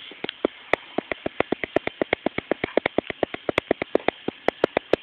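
A rapid, steady series of sharp clicks or taps, about seven a second, with a few louder ones near the end.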